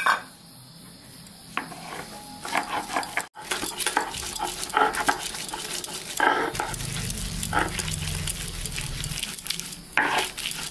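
Stone roller grinding roasted taro leaves, nigella seeds and green chillies on a flat grinding stone (sil-nora), dry with no water added: rough stone-on-stone scraping and rolling in repeated back-and-forth strokes, louder from about a third of the way in.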